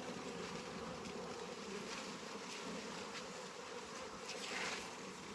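Honeybees humming steadily around an open hive, with a brief scraping rustle about four and a half seconds in.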